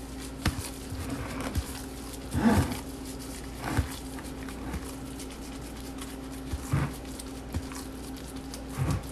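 Gloved hands squishing and kneading raw ground-meat meatball mixture in a glass bowl, in a few short, irregular squelches, over a steady low hum.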